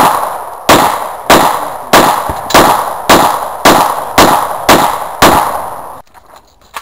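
Gun fired rapidly in a steady string of single shots, about two a second, each ringing off before the next; the string stops about six seconds in.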